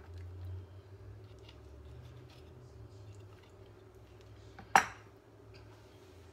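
Kitchen knife cutting softly through roasted red bell pepper on a silicone mat, with faint small ticks, then set down on the wooden cutting board with one sharp clack about five seconds in. A low hum runs through the first three seconds.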